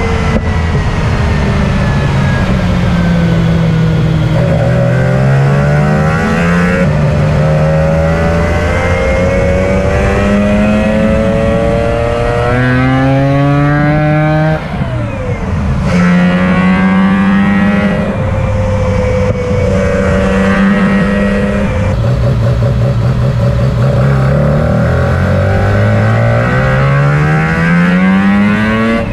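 Ported rotary engine in a pickup truck pulling through the gears: its note climbs in pitch, drops sharply at each upshift, holds steadier while cruising, and climbs again near the end.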